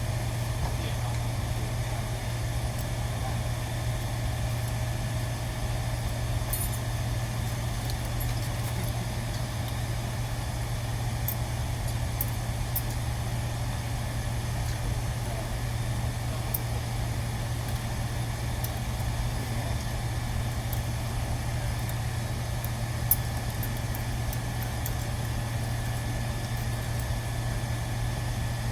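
A steady low machine hum, with scattered faint ticks and one sharp click a little over 23 seconds in.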